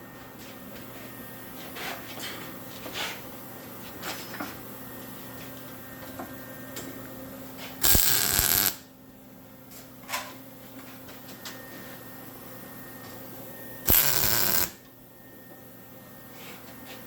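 Two short bursts of arc welding, each just under a second and about six seconds apart: quick tack welds. Between them, a few light clicks and a steady low hum.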